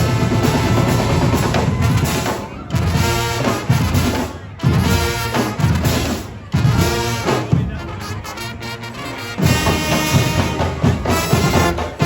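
Street brass band playing live: horns over drums, in phrases with a few brief breaks.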